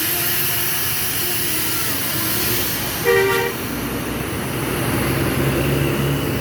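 Road traffic with a vehicle horn giving one short two-tone toot about three seconds in, not a melodic telolet tune. A low steady engine drone comes up near the end.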